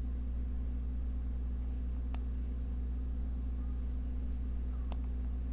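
Steady low electrical hum of the recording setup, with two faint computer mouse clicks, about two seconds in and near the end.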